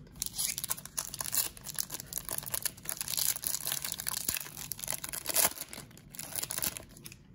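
Trading-card pack wrapper crinkling and tearing as a pack is ripped open by hand: a dense, crackly rustle with a louder rip about five and a half seconds in.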